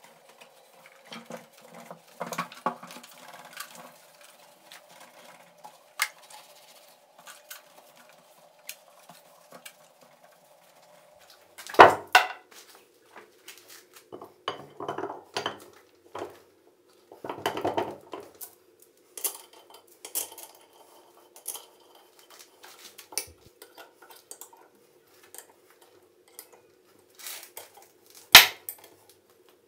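Steel machine parts handled on a workbench: scattered clinks and knocks of metal on metal. Two sharp metallic knocks stand out, about twelve seconds in and near the end.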